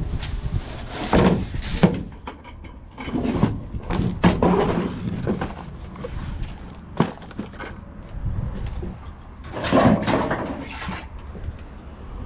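Fishing gear being handled and carried: irregular clunks, knocks and rustling, over a steady low rumble.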